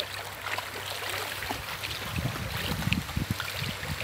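Water sloshing and splashing around legs wading through a shallow stream, over the steady rush of the flowing water; the sloshing gets heavier from about halfway.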